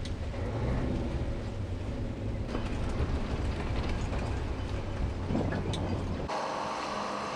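Diesel engine of a mobile crane truck running with a low steady hum while it lifts a heavy wooden fishing boat in slings. About six seconds in the sound switches abruptly to a higher-pitched engine drone, with a few faint knocks.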